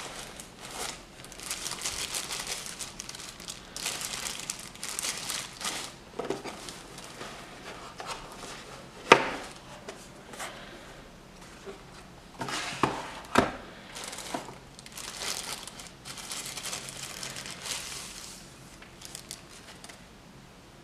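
Crinkling plastic wrapping and rustling cardboard packaging handled during unboxing, with a few sharp taps, the loudest about nine seconds in.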